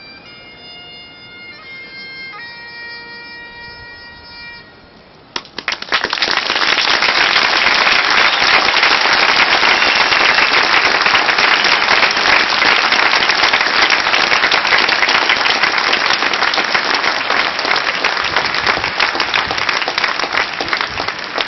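A single bagpipe plays the last notes of a slow tune and stops about five seconds in. A large crowd then breaks into loud applause that lasts to the end.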